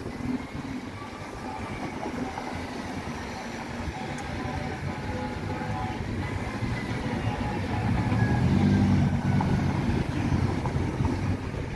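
Road traffic passing close by: car and pickup engines and tyres, loudest as a vehicle drives past about eight seconds in. A faint siren rises and falls in the distance.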